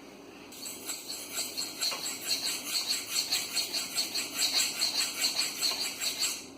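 Maxamet knife edge being stroked back and forth on a cheap budget sharpening stone in a quick, even rhythm of gritty scrapes, stopping shortly before the end. The blade skates over the stone rather than biting into it, the sign of a stone with almost no cutting power.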